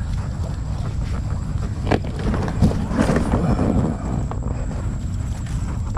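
Steady low rumble of wind buffeting the microphone. A sharp click comes about two seconds in, followed by a crackling, rustling noise lasting until about four seconds.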